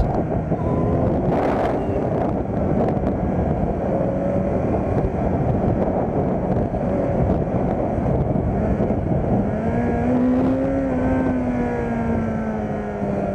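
Kawasaki Z900's 948 cc inline-four engine running under way, heard with steady wind rush on the microphone. Near the end the engine pitch rises and then slowly eases off.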